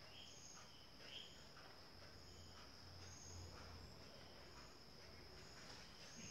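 Near silence: faint room tone with a steady high-pitched whine and soft short chirps about twice a second.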